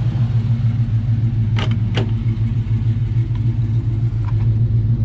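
1970 Chevrolet C-10's 350 V8, with headers and dual Flowmaster-style exhaust, idling steadily. Two sharp clicks about a second and a half and two seconds in, from the driver's door latch as the door is opened.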